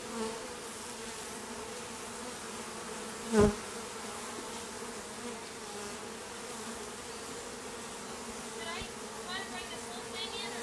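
Swarm of honeybees from an opened colony buzzing in a steady hum. A single brief thump about three and a half seconds in.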